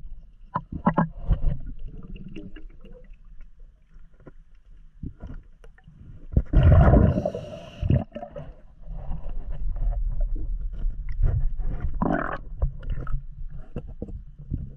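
Underwater sound of a diver's breathing regulator: a loud gush of exhaled bubbles about six and a half seconds in, lasting over a second, then a lower, steadier rumble, with scattered small clicks throughout.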